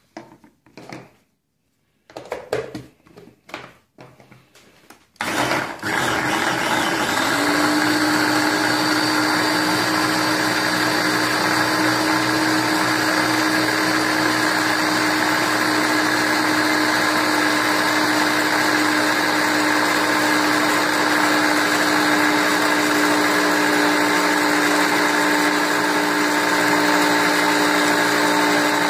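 Small electric blender puréeing soup ingredients into a liquid. After a few seconds of handling clicks the motor starts about five seconds in, settles into a steady hum a couple of seconds later, and runs loudly without a break.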